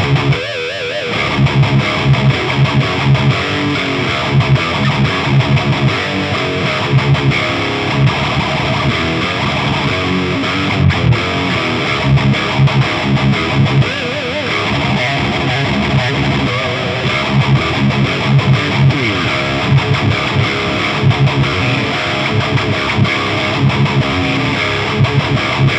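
Electric guitar played through an Orange Rockerverb 100 MKIII tube amp head, riffing heavily with distortion and repeated chugging low notes. The tone is set with the lows cut further and the amp's mids and lows turned up to about three o'clock.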